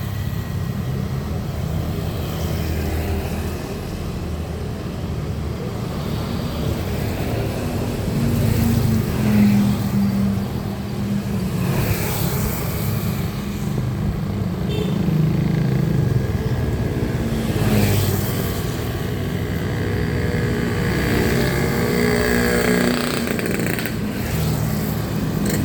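Road vehicle engines running: a steady low rumble of traffic that swells a few times as vehicles pass.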